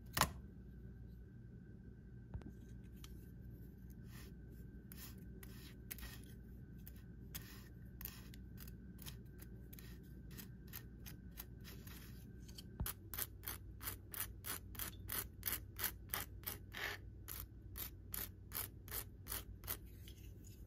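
Quiet kitchen handling of a slice of bread in a dry nonstick frying pan: a sharp tap as the slice lands, then a few light taps. From about two-thirds of the way in comes a run of rhythmic scraping strokes, about three a second.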